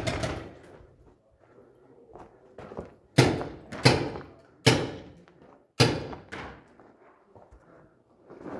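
Paintball marker shots: five sharp cracks about three to six and a half seconds in, irregularly spaced, each ringing out in the bare concrete hall.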